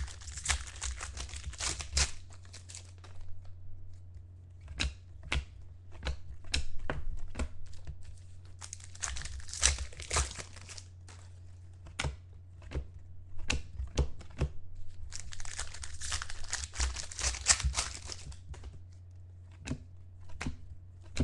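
Foil trading-card pack wrappers crinkling and tearing open in three longer stretches, with many sharp clicks between them as the cards inside are handled. A steady low hum sits underneath.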